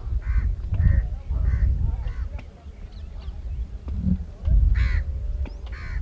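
Greater flamingos in a flock giving short goose-like honking calls: several in quick succession, a lull in the middle, then two more near the end. A low rumble runs underneath.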